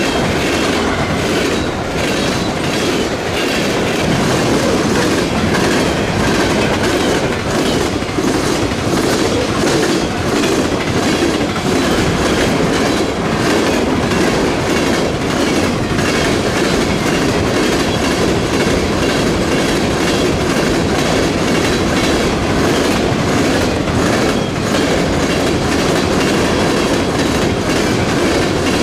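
Freight train rolling past, its cars' wheels clicking steadily over the rail joints.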